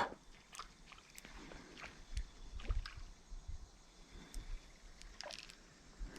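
Light sloshing and splashing of creek water with scattered small clicks and handling knocks.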